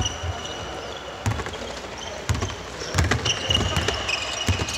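A basketball dribbled on a wooden court, thumping about once a second, with rubber-soled sneakers squeaking on the floor several times.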